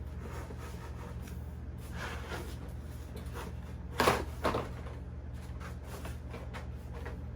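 Foam wing halves of a large RC model airplane being pulled apart by hand: quiet rubbing and handling, with a short sharp double scrape or snap about four seconds in.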